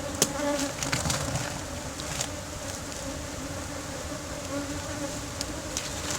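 Honeybees buzzing in a steady hum at a hive being opened for inspection, with a few sharp clicks and knocks as the hive is handled.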